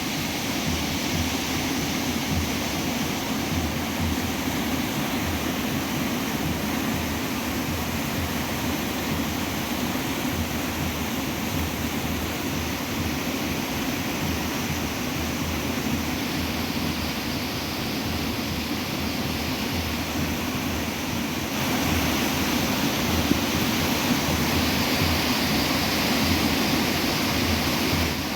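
The Ganga's headwater, the Bhagirathi, rushing past in a steady wash of water noise, growing a little louder about three quarters of the way through.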